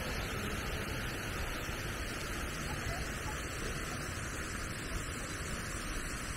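Steady outdoor background noise: an even hiss with a low rumble beneath, with no distinct events.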